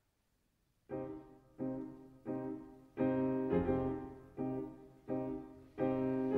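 Slow piano music that starts about a second in: a row of struck notes or chords, roughly one every 0.7 s, each ringing and fading before the next.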